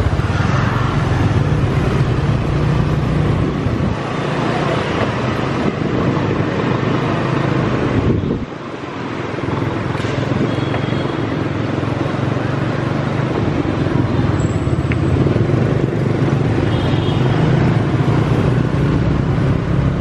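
Steady engine hum and street traffic noise while riding along a busy city street lined with parked motorbikes, dipping briefly about eight seconds in.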